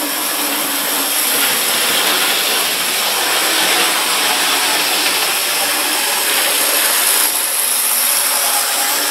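OO gauge Class 37 model diesel locomotive running steadily round the layout: a continuous whir from its small electric motor and wheels on the track.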